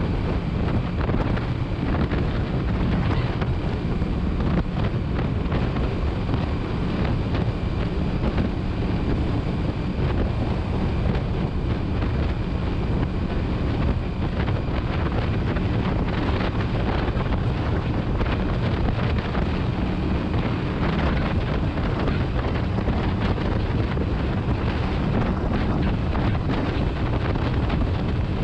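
Wind buffeting the microphone over a steady motorcycle engine note, recorded while riding.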